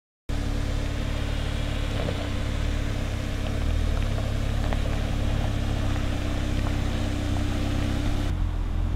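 2025 Ford Bronco Sport's engine running steadily at low speed as the SUV crawls over a rocky trail, with scattered faint clicks of stones under the tyres. The higher hiss drops away near the end.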